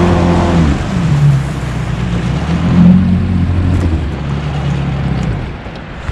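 Outboard motor of a small fishing boat running under way, its note shifting about a second in and dying away a little past five seconds, leaving only water noise.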